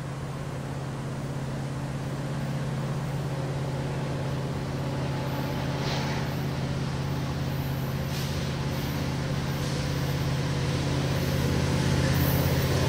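Diesel locomotives at the head of a double-stack intermodal freight train approaching under power, their engines a steady low drone that grows gradually louder.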